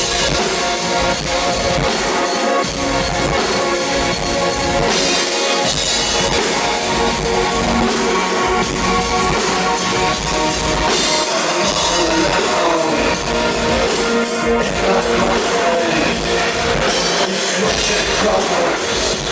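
Live industrial rock band playing loud through the PA, with a steady drum beat and dense layered instruments.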